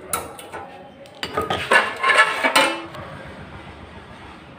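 Metal gas stove parts clinking and clattering as they are handled: a sharp click at the start, then a run of ringing metallic clinks about a second in.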